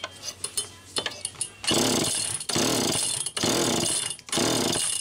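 Two-stroke Homelite Super EZ chainsaw pulled over four times on its recoil starter, a few clicks of handling first; the engine turns over on each pull but does not fire, with fuel not yet reaching the freshly rebuilt carburetor.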